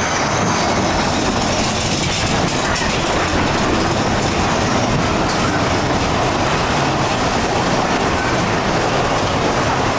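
Big Thunder Mountain Railroad mine-train roller coaster rattling and rumbling steadily along its track, heard from a seat on board.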